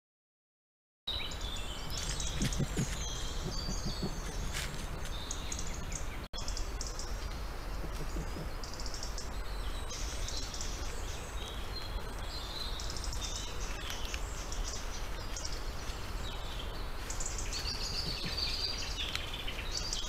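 Songbirds chirping and singing over a steady low rumble, with a few short, soft low calls from a male red fox about two to four seconds in and again near the end. These are calls to his breeding mate that signal reunion and an invitation to do something.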